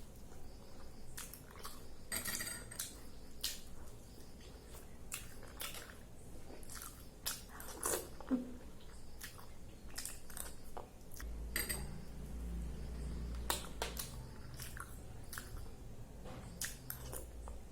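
A person chewing food close to the microphone, with many irregular small mouth clicks and smacks.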